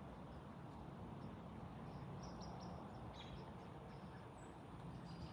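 Faint, steady low rumble of a Boeing 787-9 jet airliner passing high overhead. A few short, high bird chirps come in about two to three seconds in.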